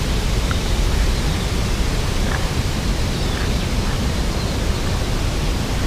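Steady rushing wind noise buffeting the camera microphone: a deep rumble under an even hiss, with no distinct events.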